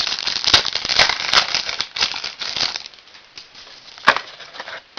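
A stack of trading cards being flipped through by hand: quick papery rustling and sharp card-edge snaps for about three seconds, then quieter, with one sharp click about four seconds in.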